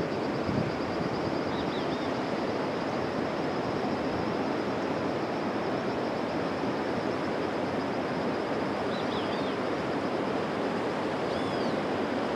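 Rushing water of a waterfall, a steady unbroken rush, with a steady high trill above it and a few short chirps.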